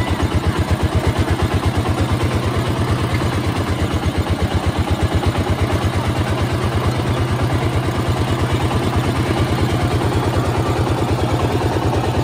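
Small engine driving a sugarcane juice crusher, running steadily with a fast, even chugging beat of about six or seven pulses a second while cane is pressed between the steel rollers.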